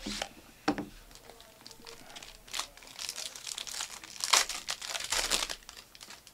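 Foil trading-card pack (Panini Prizm) being torn open and crinkled by hand: scattered crackles that thicken into a dense run of crinkling and ripping, loudest about four seconds in.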